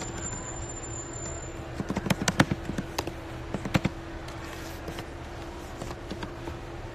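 Scattered light clicks and taps, in two short clusters about two and four seconds in with a few fainter ones after, over a faint steady hum.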